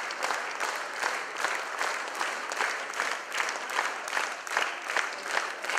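Theatre audience applauding a curtain call: dense, steady clapping from many hands.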